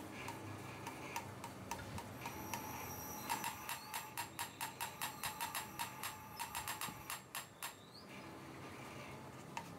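A valve being hand-lapped into its seat in a cylinder head: the stem is spun back and forth, giving rhythmic ticks on the seat, about four a second, from about three seconds in until nearly eight seconds in.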